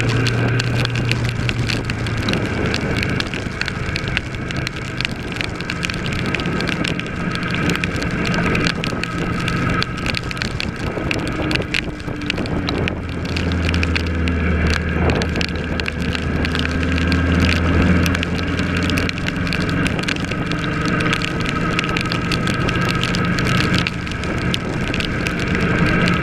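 Kawasaki ER-6 parallel-twin motorcycle engine running under way, with steady wind noise on the microphone; the engine note deepens for a few seconds in the middle.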